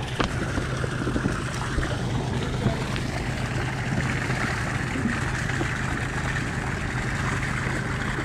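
A boat engine idling steadily, a constant low hum, with water lapping.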